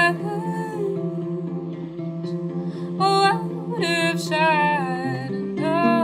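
A woman singing with her own acoustic classical guitar accompaniment. Sung phrases come and go over steadily sounding guitar chords.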